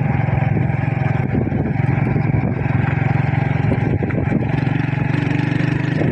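Motorcycle engine running steadily with a low hum while riding. The engine note shifts slightly about two-thirds of the way through.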